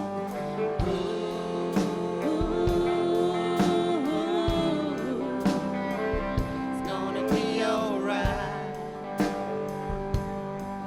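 A live band playing a reggae song, with drum strokes keeping an even beat under a sustained, wavering melody line.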